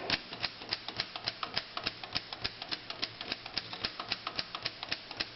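Corona 3 portable typewriter keys struck one after another, a steady run of sharp clacks at about six a second. The carriage stays put with each stroke because its drawstring is broken.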